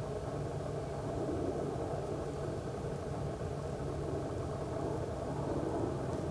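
Steady low mechanical rumble with a faint hum, engine-like and unchanging throughout.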